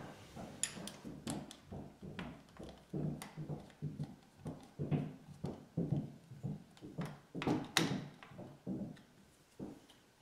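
An ebike display and its mount being fitted to a bicycle handlebar by hand and with a screwdriver: irregular clicks and knocks, a few a second, that stop just before the end.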